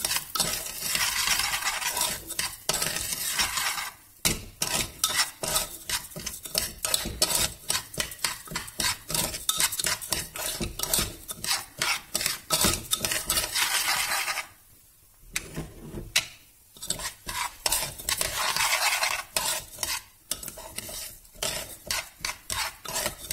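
Dalia (broken wheat) roasting in ghee in a pressure cooker, stirred and scraped against the pot in quick strokes that clink and rasp. A sizzling hiss comes and goes, and the stirring pauses briefly about two-thirds of the way through.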